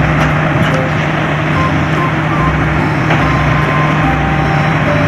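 Truck engine sound effect running steadily with short beeps at shifting pitches, played for a toy cement mixer truck.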